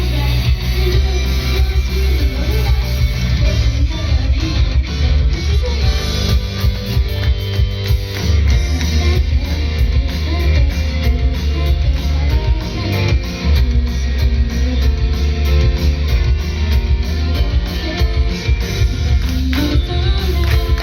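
A rock band playing live: strummed electric guitar over bass and drum kit, with a steady beat.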